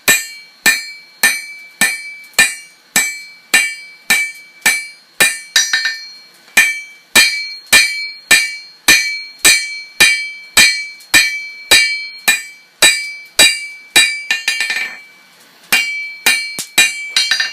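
Hammer striking a hot O1 tool steel bar on an anvil, steady ringing blows about two a second, flattening the bar's edge. A short break comes near the end, then a few quicker blows.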